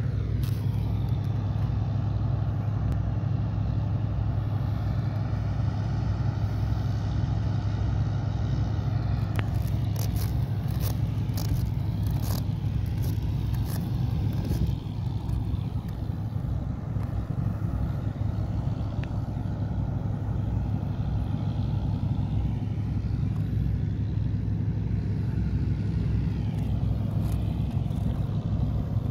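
Inline skate wheels rolling over a concrete pier surface: a steady low rumble, with a run of sharp clicks about ten to thirteen seconds in.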